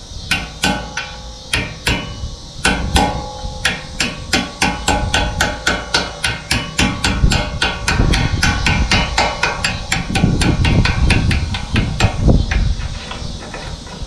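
Hammer tapping steel on steel in a long steady series, about four blows a second with a metallic ring, stopping about twelve seconds in: a lock collar as tight as the shaft itself being driven onto a round baler's shaft.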